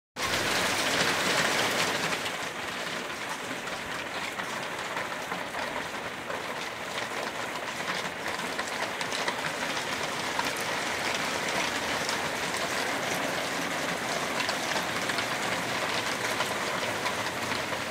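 Hail falling hard: a dense, steady clatter of countless small hailstones striking the ground and roof, a little louder in the first couple of seconds.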